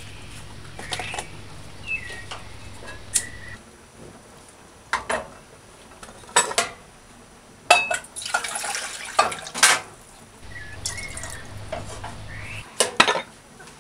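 Pots and a jug knocking and clanking on a gas stove, with water poured into an aluminium pot about eight seconds in.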